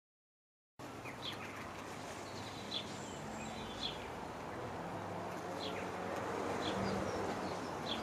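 Bumblebee buzzing in flight, a low hum that slowly grows louder, with short bird chirps repeating in the background. The sound starts abruptly about a second in, after silence.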